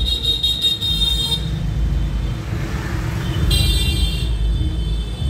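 Road traffic rumbling, with a vehicle horn sounding twice: once for over a second at the start, and again briefly about three and a half seconds in.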